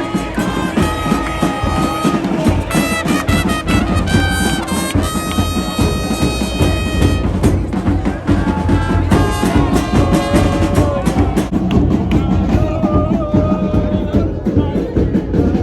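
Music with held brass notes over drums and a heavy bass.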